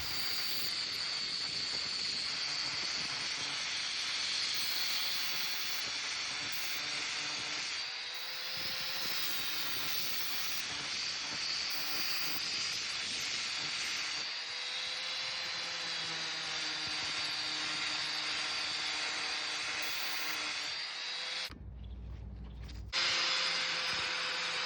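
Angle grinder fitted with a threaded flap disc, running and grinding: a steady hiss with a high motor whine that shifts in pitch now and then as it is loaded. Near the end it gives way for a second or so to a quieter low hum.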